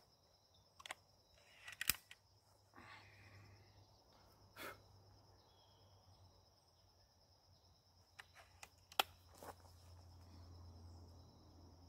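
Sharp metallic clicks and clacks of a B3-1 underlever .177 spring air rifle being cocked and loaded, the underlever swung down and back. A few clicks come in the first two seconds and another cluster about eight to nine seconds in. Crickets trill faintly and steadily throughout.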